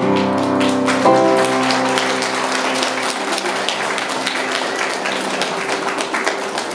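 A children's recorder ensemble holds its final chord, which dies away over the first few seconds, while audience applause starts about a second in and gradually fades.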